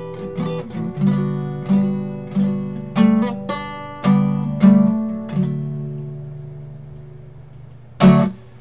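Guitar playing the song's closing chords, struck about every two-thirds of a second, then a last chord left ringing and fading away. Near the end comes a single short, loud thump.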